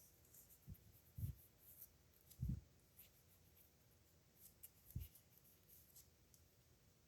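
Faint scratching of a nib pen writing on paper in short, separate strokes, with a few soft low thumps from the hand or pen against the desk.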